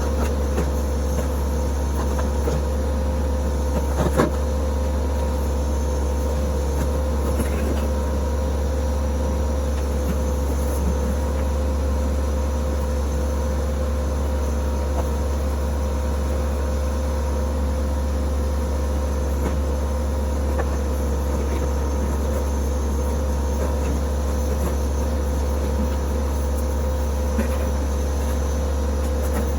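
TYM T264 compact tractor's diesel engine running steadily at a constant speed, with a couple of light knocks about four seconds in.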